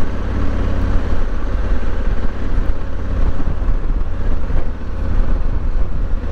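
Honda Africa Twin's parallel-twin engine running steadily while riding, with wind rumbling on the microphone.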